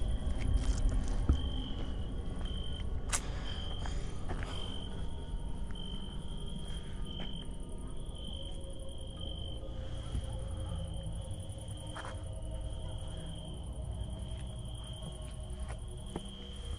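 Crickets chirping: one high trill, broken into short, regular chirps for the first several seconds, then steady. A low rumble and a few faint clicks lie underneath.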